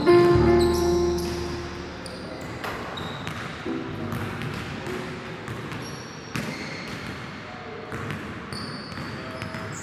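Basketball bouncing during one-on-one play, scattered thuds of the ball with short high squeaks in between. A loud pitched sound opens it and dies away over about a second and a half.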